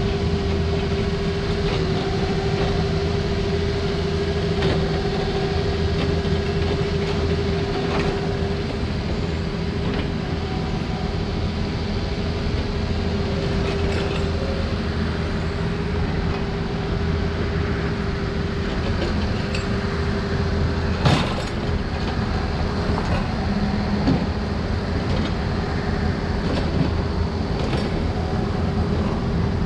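Takeuchi mini excavator running steadily as it digs, a low engine rumble with a constant whine over it. Scattered knocks of the bucket, the sharpest about 21 seconds in.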